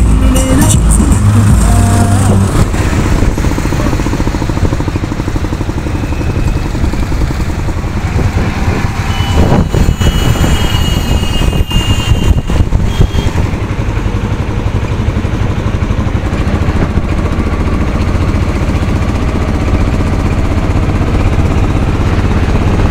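Engine and road noise of a moving auto-rickshaw heard from inside its open cabin, a steady low rumble, with a few short high tones about ten to thirteen seconds in.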